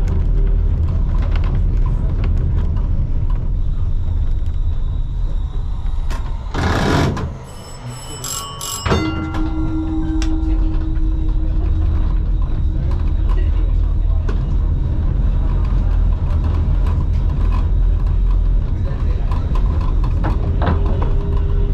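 Vintage museum tram running, a steady low rumble with a faint hum. About seven seconds in comes a short loud rushing burst, then a brief ringing just before nine seconds.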